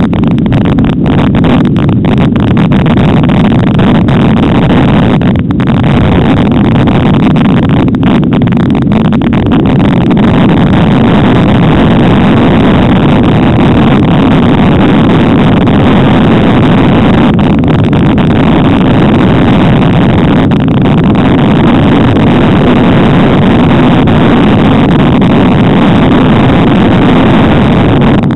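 Off-road motorcycle engine running steadily and loudly as the bike is ridden along a snowy trail, close to the microphone.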